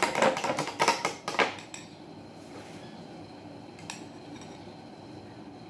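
Metal spoon clinking quickly against a small glass bowl while stirring an oil-and-lemon dressing, stopping a little under two seconds in. After that only a quiet background, with one faint tick about four seconds in.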